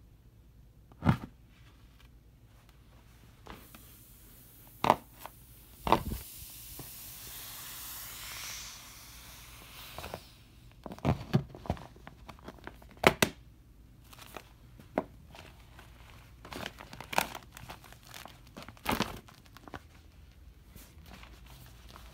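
A knife stabbing into a clear vinyl Intex beach ball, a few sharp hits, then air hissing out of the ball for about four seconds. After that the deflated vinyl crinkles and crackles as a shoe stomps on it.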